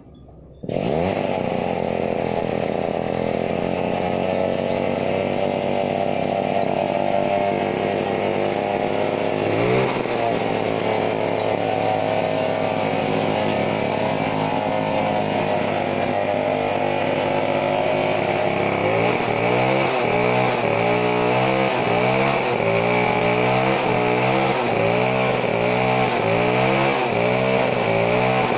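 Two-stroke chainsaw engine running hard and steadily, with a brief rev-up about ten seconds in. In the last third its pitch dips and recovers about once a second.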